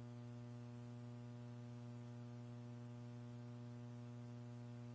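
Steady electrical hum with a ladder of evenly spaced overtones and faint hiss, the background of the launch-commentary audio line, unchanging throughout; no rocket noise is heard.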